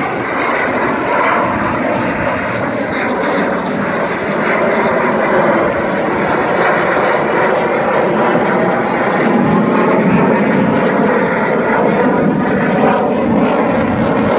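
Jet fighter flying over, its engine making a loud, continuous noise that grows a little louder and deeper from about nine seconds in.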